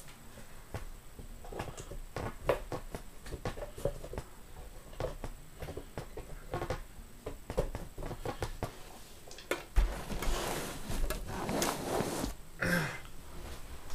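Scattered light clicks and knocks of objects being handled, then a louder stretch of rustling about ten seconds in.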